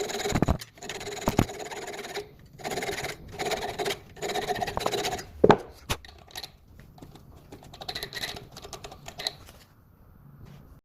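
Saw blade scraping along metal threads in a series of strokes with short pauses, the metal ringing faintly, with a few sharp knocks, one about five and a half seconds in.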